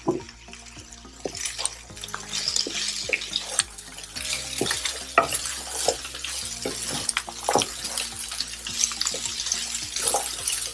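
Sliced spiny gourd and onions sizzling in a hot frying pan while a spatula stirs them, scraping against the pan, with a sharp knock at the start.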